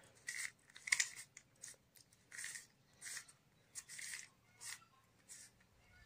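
A 3x3 Rubik's cube being scrambled by hand. Its plastic layers are twisted again and again, giving about a dozen short, irregular clicking rasps.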